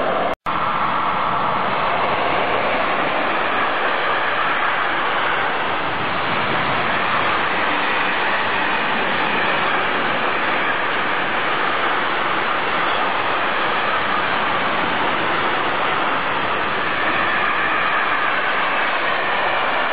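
Intermodal freight train of flat wagons carrying swap bodies and tank containers rolling past close by: a steady rumble of wheels on rails. There is a momentary break in the sound just after the start.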